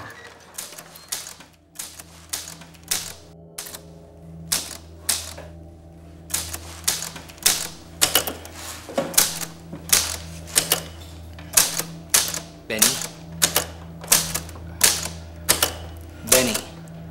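Typewriter keys struck one at a time, each a sharp clack. The strokes are sparse and uneven for the first few seconds, then settle into a steadier run of about two a second. A low steady drone lies underneath.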